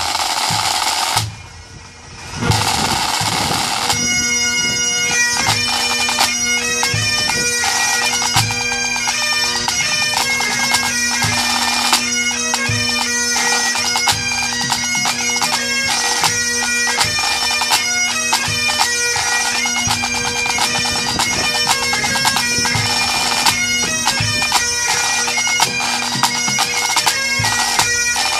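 Pipe band drum corps playing snare and tenor drums together, with Highland bagpipes sounding a steady drone and a tune over the drumming. There is a brief lull about a second and a half in, then pipes and drums start again and carry on.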